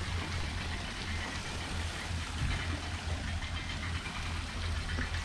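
Boat engine idling with a steady low hum, over an even background hiss.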